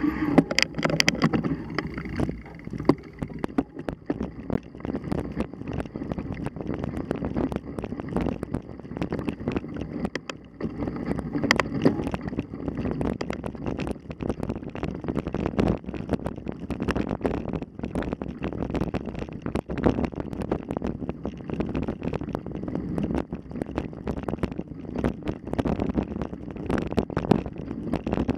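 Mountain bike riding over rough ground, heard from a camera on the bike: wind buffeting the microphone over a constant clatter of rattles and knocks.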